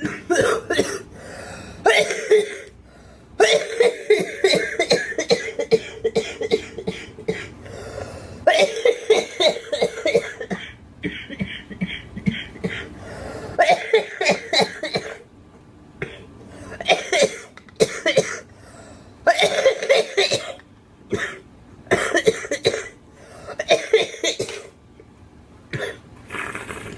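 A girl coughing in repeated fits: bouts of several quick coughs in a row, with short breaks between the bouts.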